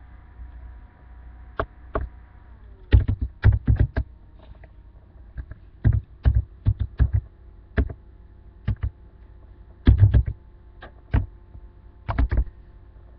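Irregular sharp taps and clicks on a laptop keyboard and touchpad close to the built-in microphone, each with a dull thud, some single and some in quick runs of three or four. A faint steady electrical hum lies under them.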